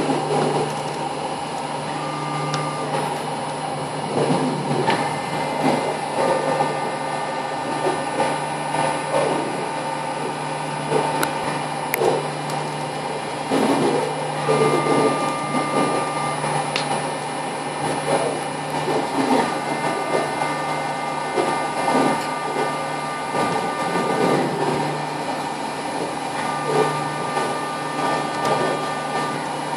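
A machine runs steadily as it moves chopped straw along a metal channel, with a constant hum and an irregular rustle and scrape from the straw. A higher whine comes and goes several times.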